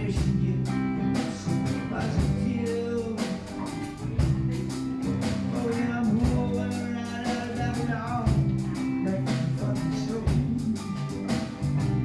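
Background music: a rhythmic guitar-based song with a steady beat.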